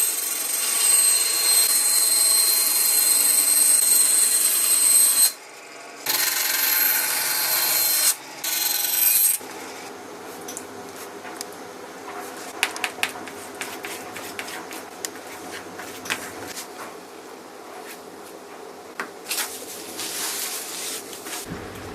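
Power saw cutting plywood, running with a steady high whine. It stops briefly twice and cuts out about nine seconds in. Quieter clicks and knocks of wood being handled follow.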